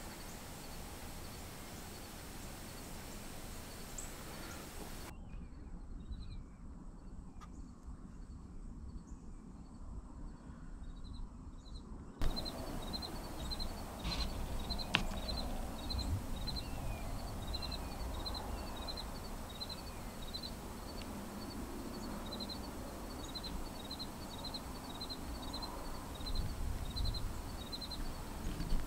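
Outdoor ambience in the woods: a steady background hush with a small bird chirping high and repeatedly, about two chirps a second, and a few short falling bird calls. A single sharp click about halfway through.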